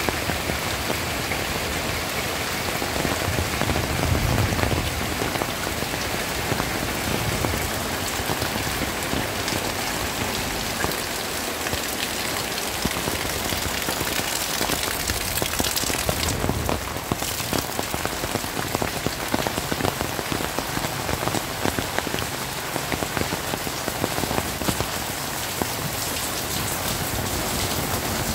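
Heavy rain falling steadily, with many individual drops ticking on surfaces close by. There is a brief low rumble about four seconds in.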